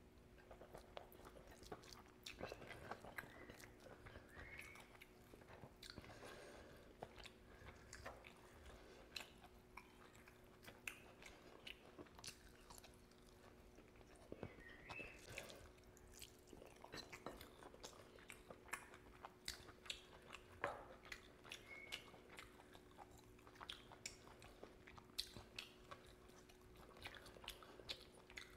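Quiet, close-up chewing of rice and curry with the mouth open, with many irregular wet smacks and small clicks, over a faint steady hum.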